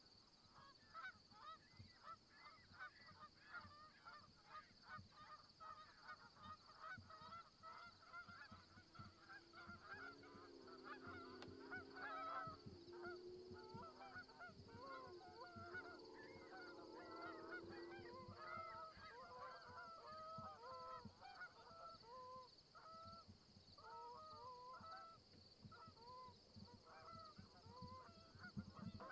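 A flock of Canada geese honking at a distance, many short overlapping calls, busiest in the first half and thinning out later. A low steady hum joins in for several seconds midway.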